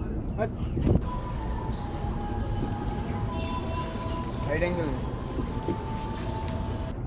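Insects shrilling steadily in a high continuous chorus, a second, slightly lower insect chorus joining about a second in and cutting off just before the end. A single knock sounds about a second in, over a low rumble.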